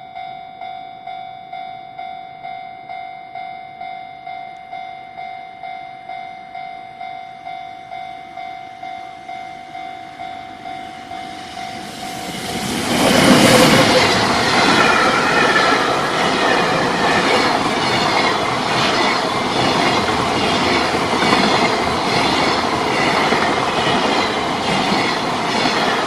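Japanese level-crossing warning bell ringing a steady electronic ding about one and a half times a second. About halfway through, a long JR Freight container train arrives and passes close by, and the rhythmic clatter of its wagon wheels over the rail joints drowns out the bell.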